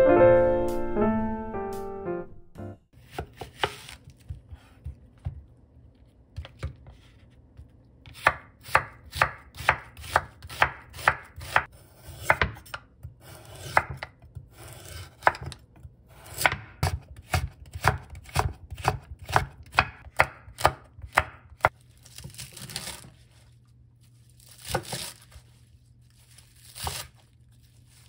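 Chef's knife cutting vegetables on a wooden cutting board. In the middle there are quick, regular strokes, about two to three a second, as carrot is sliced into strips. Near the end come a few slower, broader cuts through bunched minari (water dropwort) stalks. Piano music fades out in the first two seconds.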